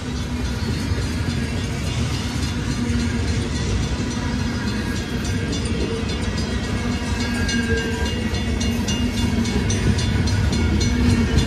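A long freight train's cars rolling past: steady steel-wheel rumble on the rails with a faint squealing ring, and wheel clicks over rail joints that come thicker and louder in the second half.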